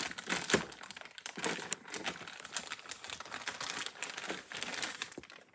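Clear plastic zip-top bag crinkling as a hand rummages through it, with dry-erase markers clicking against each other inside, in irregular crackles and clicks.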